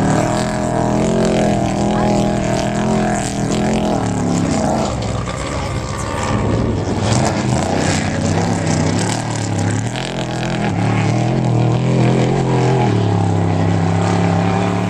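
Off-road desert race truck's engine running at high revs, its pitch rising and falling with the throttle as it drives past and away. The engine drops back under a rushing noise about four seconds in, then comes back strong from about ten seconds in.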